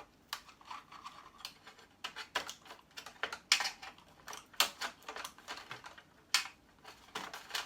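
Screwdriver taking the screws out of an electrical switch: irregular sharp clicks and light metallic ticks, a few louder ones about three and a half and six seconds in.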